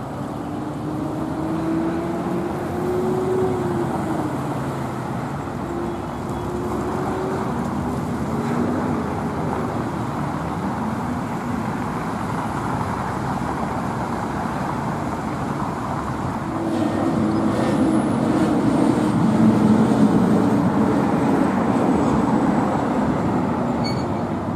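Road traffic: cars driving past, their engine hum rising and falling in pitch as they go by, growing louder for several seconds near the end as vehicles pass close.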